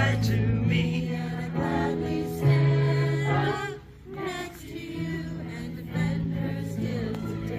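Live music played through PA speakers: a singer with band backing, the melody sung over held low notes that change every second or two.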